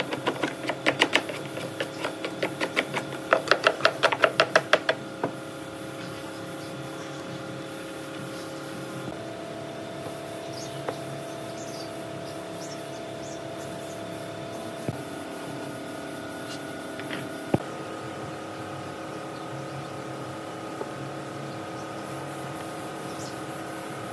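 Fast, regular strokes of a hand tool worked against a wooden speaker cabinet, about five a second for the first five seconds. After them come a few single light knocks.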